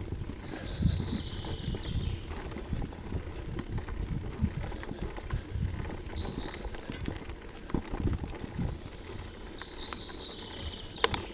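Mountain bike rolling over a bumpy dirt forest trail: a steady low rumble of the tyres with irregular knocks and rattles from the bike over bumps, and a couple of sharp clicks near the end.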